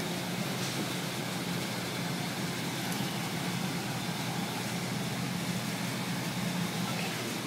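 A steady low machine hum with a constant hiss behind it, unchanging throughout.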